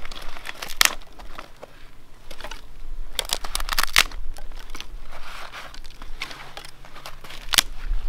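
Dry twigs and sticks snapping and rustling as they are broken up by hand and laid as kindling for a campfire. There are sharp snaps about a second in, a cluster of them around three to four seconds in, and one near the end.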